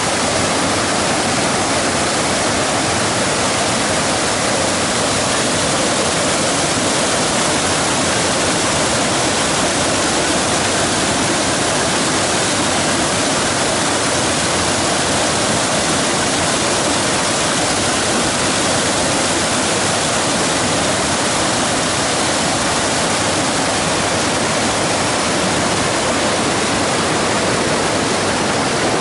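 River water rushing down a small cascade between boulders: a loud, steady rush of white water.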